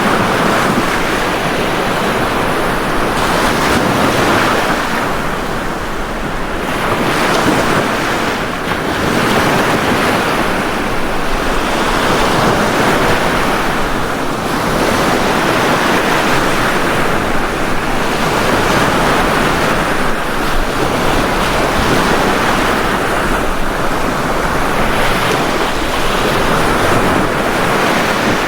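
Ocean waves breaking on a beach, a continuous surf wash that swells and eases every few seconds, with some wind noise on the microphone.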